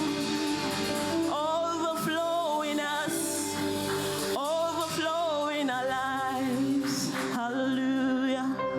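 Church choir singing a gospel song with instrumental accompaniment, a few long held notes with vibrato over a sustained backing.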